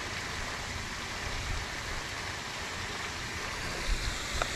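Steady, even outdoor hiss with no clear source, and a couple of faint clicks about four seconds in.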